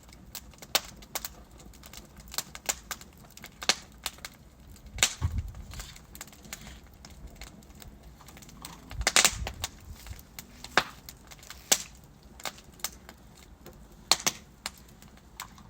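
Logs burning in a fireplace, crackling with irregular sharp snaps and pops. Two louder, fuller bursts of popping come about five and nine seconds in.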